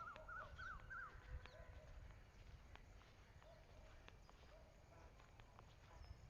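Near silence with faint distant animal calls: a run of short repeated pitched calls in the first two seconds, then a few fainter ones later.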